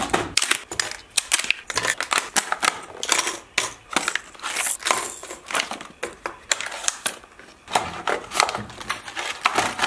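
Plastic blister packs of fishing lures being crinkled and cracked open by hand, giving a busy run of irregular sharp clicks and crackles, with lures knocking into the plastic trays of a tackle box.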